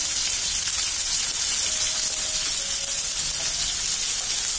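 Onion, green chillies and freshly added spice pastes sizzling steadily in hot oil in a pan.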